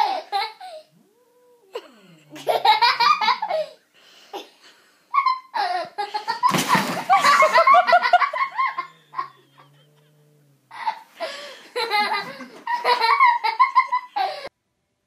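People laughing hard in several bouts with short pauses between them, the bout in the middle the loudest; the laughter stops abruptly shortly before the end.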